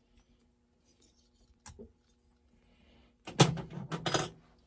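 Metal hand tools and small parts clinking and rattling on a workbench: a single click, then a burst of clatter about three seconds in.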